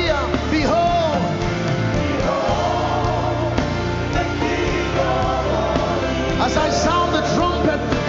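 Live gospel worship music from a full band, with singing and melodic runs sliding up and down in pitch over a steady bass.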